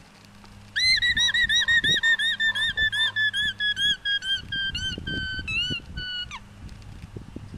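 Alpaca giving its alarm call: a rapid string of short, shrill, high-pitched notes, about four a second, drifting slowly lower and ending in a downward slide. It is the warning call alpacas give at a predator or intruder close by.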